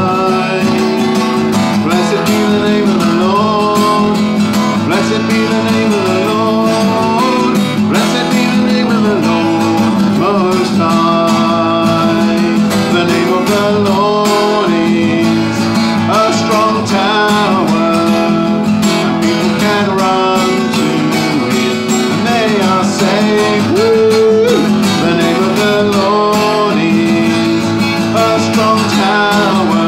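A man singing a worship song to his own steadily strummed acoustic guitar.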